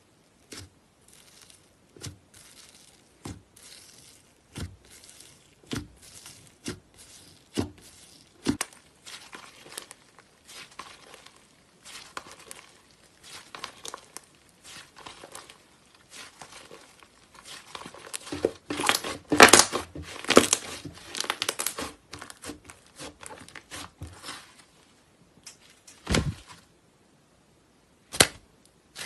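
White slime pressed, poked and stretched by hand, giving sharp sticky pops about once a second at first. It then turns to a louder run of dense crackling about two-thirds of the way through, with two more pops near the end.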